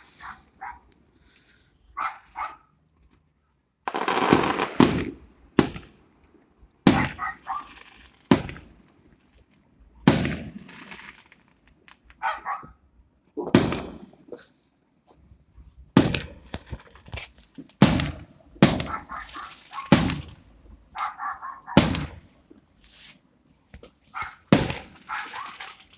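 Firecrackers going off in an irregular string of sharp bangs, one every second or two, each with a short echoing tail.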